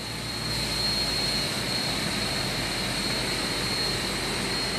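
Loud, steady noise of large industrial machinery running in a plant room, with a constant high-pitched whine over it.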